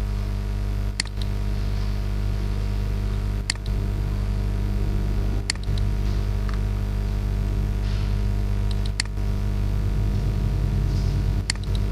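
Steady electrical hum, with five sharp computer-mouse clicks spread a few seconds apart.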